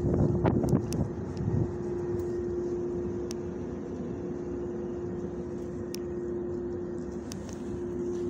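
A steady mechanical hum with a rumble beneath it runs throughout. Wind buffets the microphone for the first second and a half.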